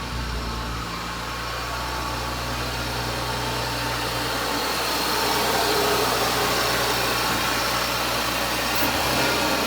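B9 Audi S4's turbocharged 3.0 TFSI V6, fitted with a 034 Motorsport P34 cold air intake, idling steadily just after start-up, the revs settling down about a second in.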